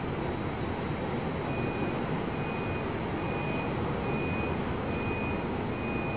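Steady rush of storm wind and heavy sea on a ship. From about a second and a half in, a high-pitched electronic beep repeats about once a second.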